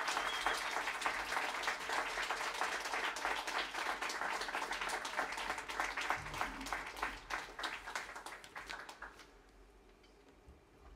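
Audience applauding, the clapping thinning out and dying away about nine seconds in.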